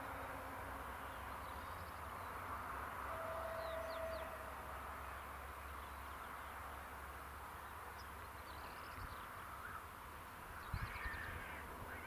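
Quiet rural outdoor ambience: a steady low rumble with faint bird calls scattered throughout, a few more near the end along with some soft low thumps.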